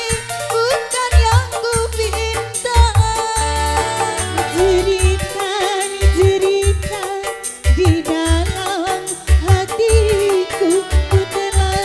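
Live dangdut music from an orgen tunggal keyboard rig: a steady beat of deep bass hits and a bending, ornamented melody line.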